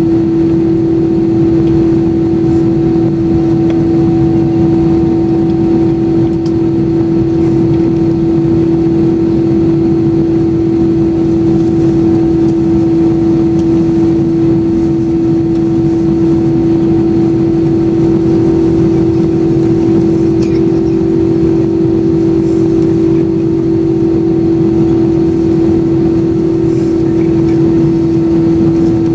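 Airbus A321-200 cabin noise: a steady drone of jet engines and airflow with a strong, even hum over a low rumble, heard inside the passenger cabin.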